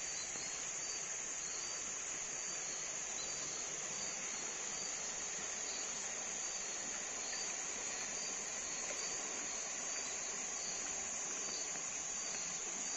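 A steady, high-pitched insect chorus buzzing from the riverside forest, unchanging throughout.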